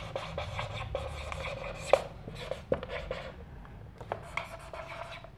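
Marker pen writing on a whiteboard: a run of short scratching strokes, with a couple of sharper taps about two seconds in.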